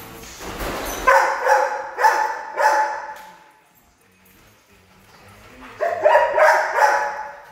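A dog barking in two bouts of several loud barks each, one starting about a second in and another near the end.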